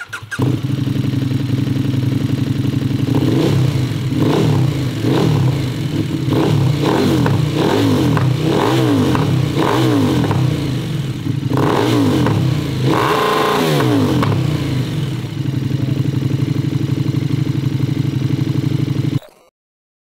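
KTM 1290 Super Duke R's V-twin engine, through an Austin Racing RS22 full titanium exhaust with its road dB-legal end cans, idling and then revved in a run of quick blips. The highest rev comes about 13 s in, then it settles back to idle before the sound cuts off suddenly.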